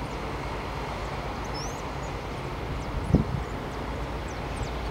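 A steady low mechanical rumble, with one short low thump about three seconds in and a few faint high chirps above it.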